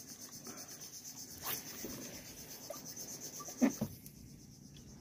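Steady high-pitched buzzing of insects, fading somewhat about four seconds in, with a few faint clicks and one short knock a little after three and a half seconds.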